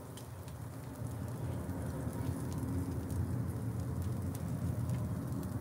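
Pork loin chops sizzling on a charcoal grill, with scattered crackles and pops over a steady low rumble that grows a little louder.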